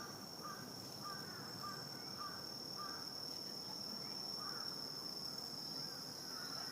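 Night outdoor ambience: insects trilling steadily at a high pitch, with a run of short repeated calls from another animal, about two a second, through the first half and again near the end, over a low hiss.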